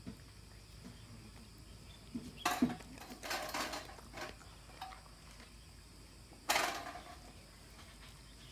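A dog crunching raw fish bones. There are a few sharp crunches: one about two and a half seconds in, a quick cluster a second later, and a loud one near the end, with light clicks of bone between.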